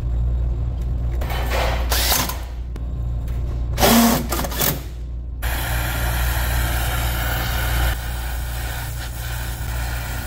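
A low steady hum, with knocks and rustles of parts being handled in the first half. About halfway through, the even hiss of a brazing torch flame starts suddenly and runs on as it heats a copper liquid-line joint to unsweat it.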